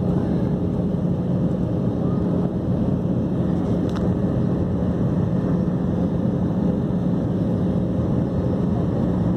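Steady drone inside a jet airliner's cabin during descent: turbofan engine and airflow noise with a constant low hum.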